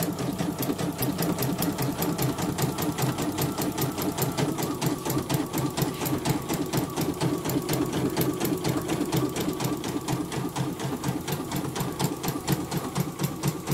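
CNY portable computerized embroidery machine stitching steadily, with a rapid, even rhythm of needle strokes as it sews through thick fabric laid over foam for raised 3D embroidery. It runs without the crunching "kruk kruk" knock it makes on thick material at its standard setting, a sign that it has been adjusted correctly for thick fabric.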